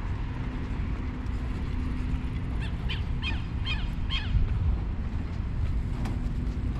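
A bird calling about five times in quick succession near the middle, short harsh calls about a third of a second apart, over a steady low rumble of wind on the microphone and the walker's footsteps.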